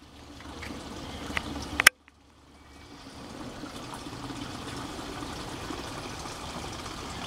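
Spring water trickling from a pipe into a large plastic water-cooler bottle, a steady slow fill. A sharp click about two seconds in, after which the sound drops out briefly and fades back in.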